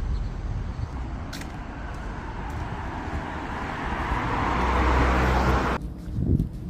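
Road traffic noise that swells as a vehicle passes close by, with a deep rumble, then cuts off abruptly a little before the end, followed by a short low thump.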